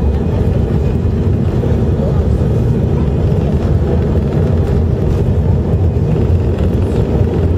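Airbus A319's engines at takeoff thrust and its wheels running on the runway, heard from inside the cabin as a loud, steady low rumble during the takeoff roll.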